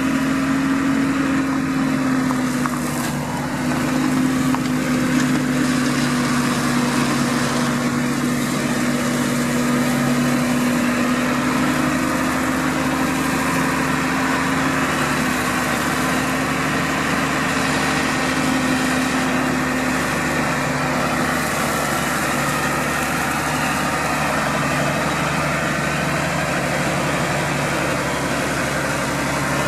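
New Holland TM140 tractor's diesel engine running steadily, powering a Shelbourne reach-arm flail hedge cutter as it works and then drives on. A steady hum is part of the sound, and its higher tone fades out about two-thirds of the way through.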